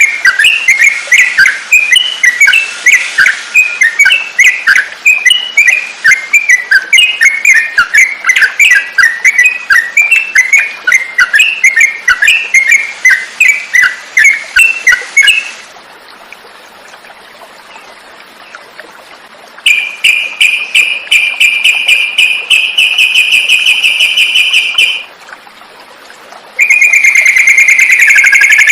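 Yellow-vented bulbul (trucukan) birdsong used as masteran training audio. A fast run of chirpy, whistled notes lasts about fifteen seconds. After a short pause comes a rapid even trill of about five seconds, and another loud trill starts near the end.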